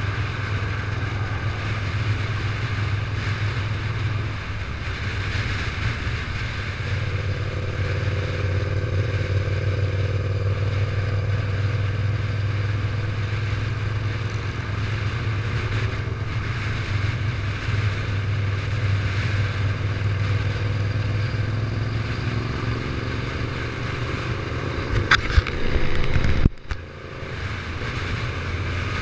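Motorcycle running at steady cruising speed, heard from a camera mounted on the bike: a constant low engine drone under steady wind and road noise. Near the end come a few sharp knocks, followed by a brief sudden drop in the sound.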